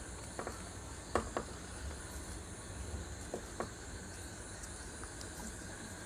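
Quiet handling sounds: a few soft clicks and rustles as a roll of PVC electrical tape is unwound and wrapped around a wire joint, over a steady faint hiss.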